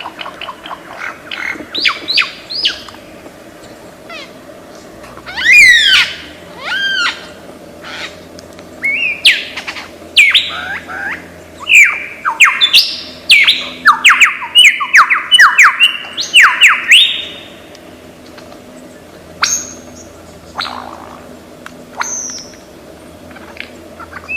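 Lyrebird singing its mimicking song: a varied medley of loud whistles and sharp down-slurred calls, breaking into a rapid run of descending notes about halfway through.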